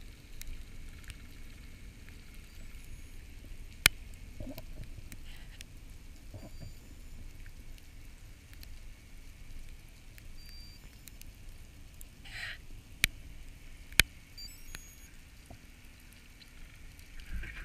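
Underwater sound of a freedive descent: a low, steady rush of water over the gun-mounted camera, with a few faint crackles and three sharp clicks, one about four seconds in and two close together near the end.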